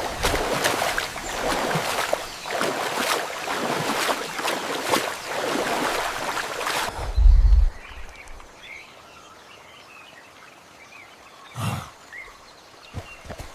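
Loud rushing and splashing floodwater for about seven seconds, ending in a deep thud. It then drops to a quieter rainforest background with faint bird chirps and one brief whoosh near the end.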